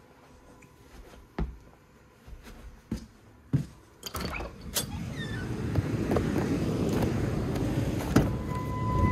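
A few thuds of footsteps and handling, then a house door's latch clicking and the door opening about four seconds in, followed by a rising outdoor rush of noise. Near the end a pickup truck's exterior door handle clicks open and a short beep sounds.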